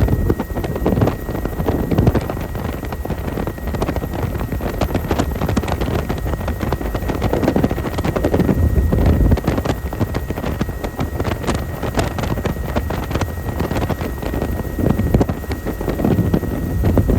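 Helicopter in flight, heard from inside: steady rotor and engine noise with a thin high whine, and wind gusting on the microphone.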